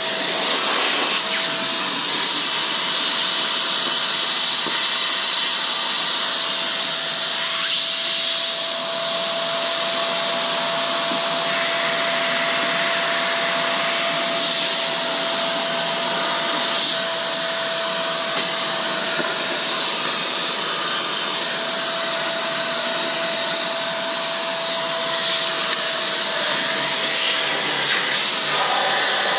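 Vacuum cleaner running steadily, a motor whine under the rush of air, sucking up leaves and dust from around a car's radiator. The airflow hiss shifts now and then as the nozzle moves.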